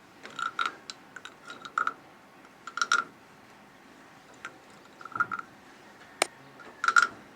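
Decorative wooden frog rasped with its stick, giving short clicking croaks in about six brief bursts at irregular intervals. A single sharp click comes about six seconds in.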